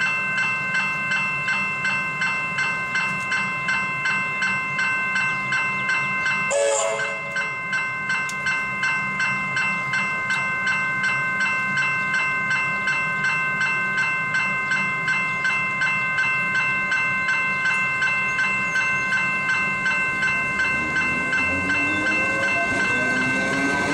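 Level crossing bell ringing with rapid, evenly spaced strikes, about two a second. A short horn toot sounds about seven seconds in, and near the end a suburban electric train's motors whine up in pitch as it pulls away toward the crossing.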